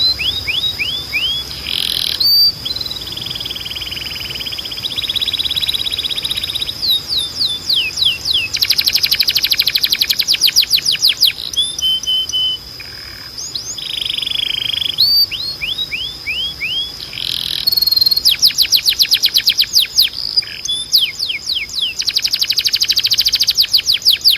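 Timbrado canary singing: runs of descending whistled notes alternating with long, very fast rolling trills, over a steady high tone.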